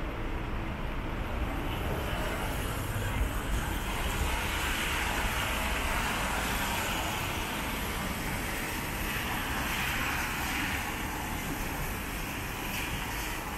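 City street traffic on a rain-wet road: a steady hiss of tyres over a low engine rumble, swelling as vehicles pass about four seconds in and again around ten seconds.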